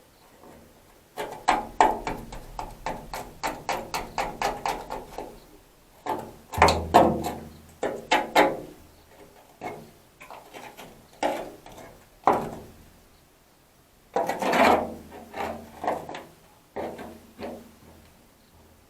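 Repeated hand scraping or rubbing strokes: a quick run of about three strokes a second for several seconds, then a few slower, louder scrapes.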